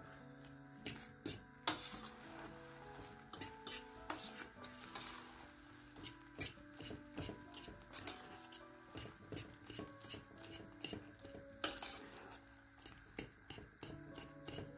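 A metal fork beating mashed potatoes in a stainless steel pot, its tines scraping through the mash and clicking against the pot many times at an uneven pace, over soft background music.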